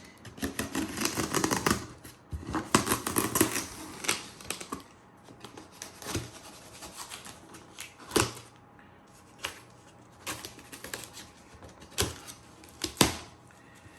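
A cardboard shipping box being opened by hand: bursts of scraping, rustling and rapid clicking in the first few seconds, then sharp knocks about 8, 12 and 13 s in as the box and flaps are handled.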